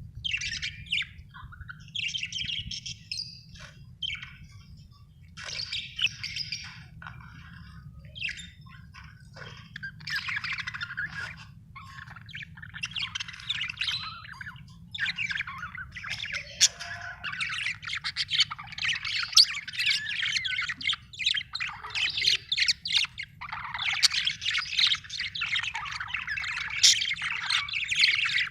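Budgerigar chirping and chattering in short warbling phrases, at first with pauses between them and nearly without a break from about ten seconds in.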